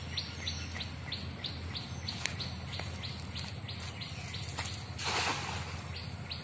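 Hand-thrown cast net landing on canal water with a brief splash about five seconds in. Behind it, a steady run of short falling chirps, about three a second.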